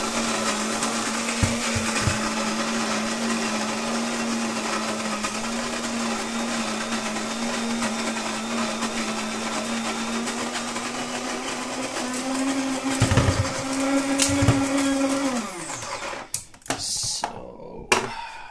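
De'Longhi electric coffee grinder running steadily as it grinds coffee beans on its finest setting. The pitch steps up a little near the end, then the motor winds down, and a few sharp knocks follow.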